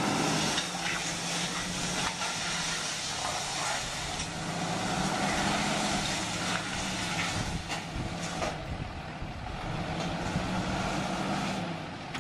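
A pickup truck's engine running steadily, with a hissing noise over it and a few scattered knocks.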